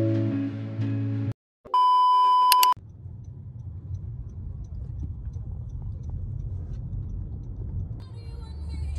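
The end of a short music sting, then a loud electronic beep at one steady pitch lasting about a second, followed by the low, steady road rumble of a car's interior while driving.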